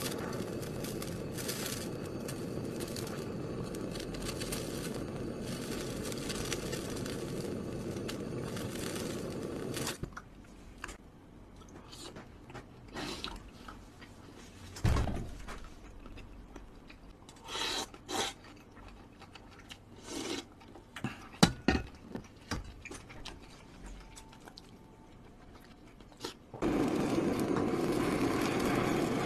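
Handheld butane torch on a gas canister running with a steady hiss as it sears raw beef, for about ten seconds. Then a quieter stretch of scattered small clicks and eating sounds, until the torch starts hissing again near the end.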